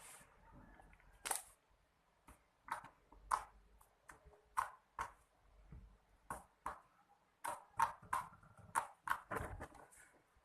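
Slime being pressed and poked by hand, giving a string of short, sharp clicks and pops, one or two a second at uneven spacing.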